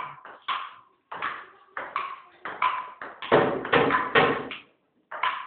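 Ping-pong ball bouncing and being knocked about: a quick, irregular run of sharp clicks, some falling in close pairs.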